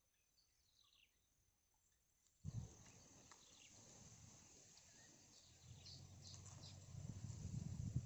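Near silence, then about two and a half seconds in a sudden step up to steady outdoor background noise, with a low rumble building toward the end and a few faint, brief high chirps.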